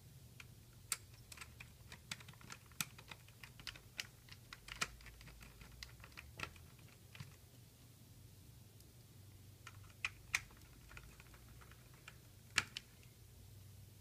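Small, sharp clicks and taps of a screwdriver, small screws and fingers on the plastic and metal parts of a car radio faceplate. They come in a dense scatter for the first half, then there are a few louder single clicks near the end.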